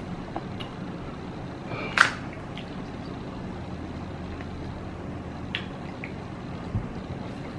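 Small eating sounds: chopsticks clicking and scraping in a paper instant-ramen cup, with one sharp click about two seconds in and a few fainter taps, over a steady low background hum.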